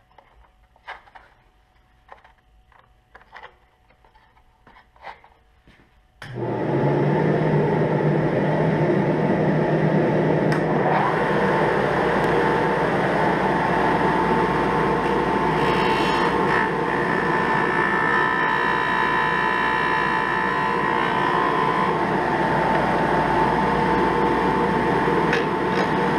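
A few clicks and knocks as the miter gauge of a Porter-Cable disc sander is set. About six seconds in, the sander's motor switches on and runs steadily while a small wooden lure blank is held against the spinning disc and sanded.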